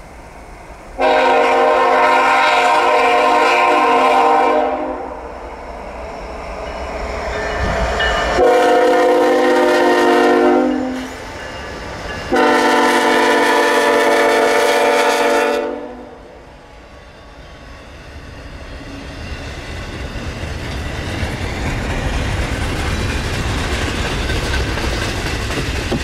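CSX freight locomotive's air horn sounding three blasts, the middle one shorter, for a grade crossing. After the horn, the low rumble of the passing double-stack train grows steadily louder.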